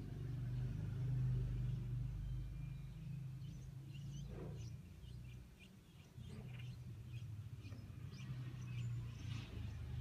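Nestling birds giving many short, high begging chirps in quick succession, starting about a third of the way in as a parent bird arrives at the nest to feed them. A steady low mechanical hum runs underneath and is louder than the chirps.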